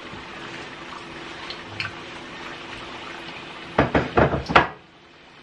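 Egg rolls deep-frying in hot vegetable oil: a steady sizzle of bubbling with scattered small pops. About four seconds in comes a brief cluster of several loud pops or knocks, after which the sizzle turns quieter.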